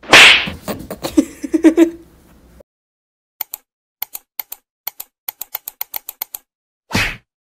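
A loud hiss-like burst and a few short pitched animal cries as a cat faces off with a dog, cut off after about two and a half seconds. Then comes a quick run of clicks like typing on a keyboard, about five a second, from a subscribe-button sound effect, and a short whoosh near the end.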